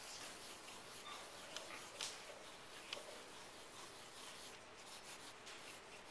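Faint scratching of a graphite pencil on drawing paper as an ellipse is sketched, with a few light ticks of the tip.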